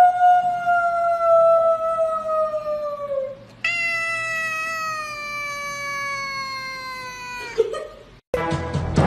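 Domestic tabby cat giving two long, drawn-out meows, each held for three to four seconds and sliding slowly down in pitch.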